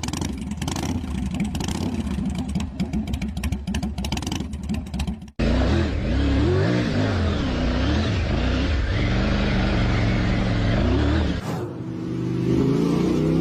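Car engine sound effects in succession: first a rough, rapidly pulsing engine running, then after an abrupt cut about five seconds in, an engine revving up and down several times, and near the end an engine accelerating with a steadily rising pitch.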